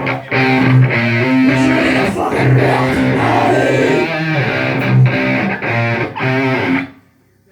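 A live rock band plays a loud riff led by electric guitar, with bass underneath. The music stops abruptly about seven seconds in.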